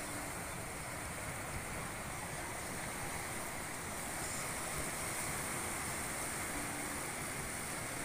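Small sea waves washing in over a rocky shore, a steady rush of surf that swells a little about halfway through.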